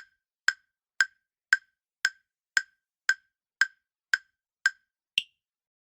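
Quiz countdown-timer sound effect: eleven sharp ticks, about two a second, the last one higher-pitched, marking the time to answer running out.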